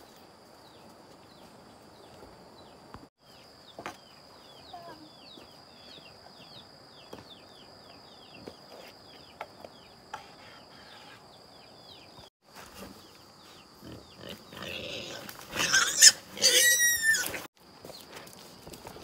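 A pig squeals loudly for about two seconds near the end, shut in a woven bamboo basket wrapped in a feed sack.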